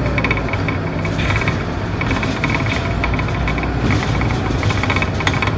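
Scania K230UB city bus heard from inside the cabin while under way: the five-cylinder diesel engine runs steadily, with a steady low hum and small rattles from the interior fittings throughout.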